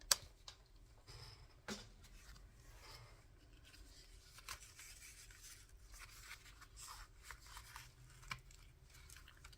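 Faint rustling of paper and card with a few soft clicks and taps as a trimmed piece is handled and eased into a paper envelope pocket of a handmade journal.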